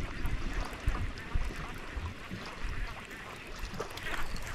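Outdoor noise on a small fishing boat: an irregular low rumble of wind on the microphone and water around the hull, with a few dull low thumps about one and one and a half seconds in.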